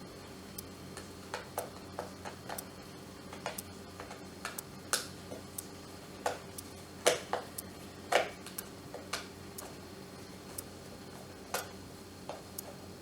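Screwdriver working small screws out of a plastic kettle base: irregular light clicks and taps, with a few louder knocks around the middle.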